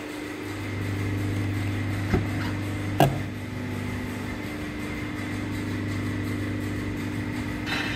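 A steady low hum with two knocks a little under a second apart about two seconds in, the second one sharp and the loudest; a brief rustle near the end.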